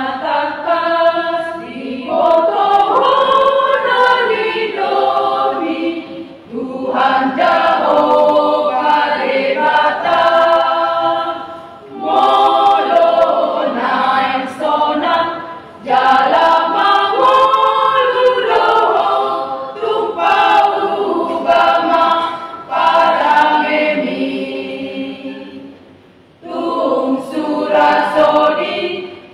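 Women's church choir singing a hymn, in phrases with brief pauses for breath between them.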